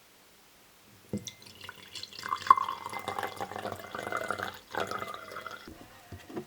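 Water running or pouring with drips and splashes, starting about a second in and thinning out near the end.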